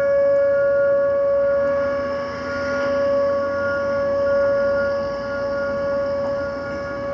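Whelen outdoor warning siren of a nuclear power station's alert system sounding a steady tone during a siren test. The loudness swells and fades about every four seconds.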